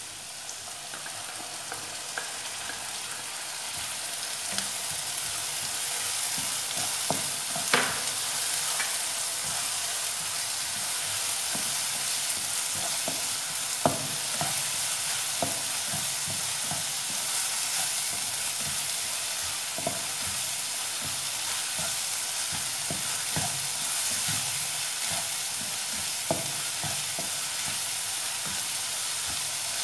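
Chopped onion and ground chilli, ginger and garlic paste sizzling in hot oil in a non-stick pan, stirred with a spatula that now and then clicks against the pan. The sizzle builds over the first few seconds, then holds steady.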